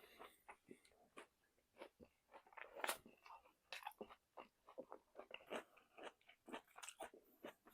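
A person chewing and biting into crispy fried chicken close to the microphone: irregular crunches and wet mouth clicks, several a second.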